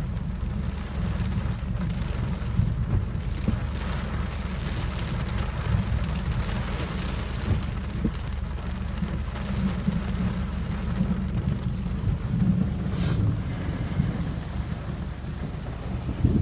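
Thunderstorm heard from inside a car through a partly open window: rain pattering steadily on the car, with a continuous low rumble of thunder underneath.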